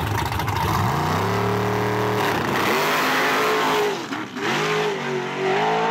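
Drag-race Chevrolet LUV pickup's engine launching off the line and accelerating hard down the strip. Its pitch climbs, drops back twice at the gear changes about two and four seconds in, and climbs again.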